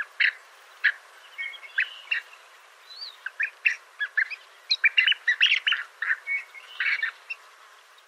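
Birds chirping and calling: an irregular run of short, sharp chirps and brief whistled notes, coming thickest in the second half.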